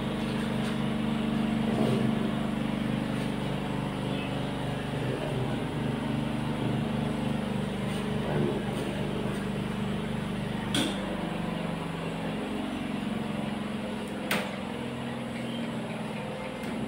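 A steady low machine hum that shifts in pitch about eleven seconds in, with two short sharp clicks, one near the middle and one a few seconds later.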